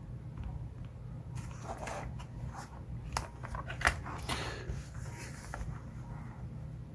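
Lock picking a Master Lock padlock with a city rake and tensioner: light scraping and irregular sharp metallic clicks as the rake works the pins, with one louder click near the middle.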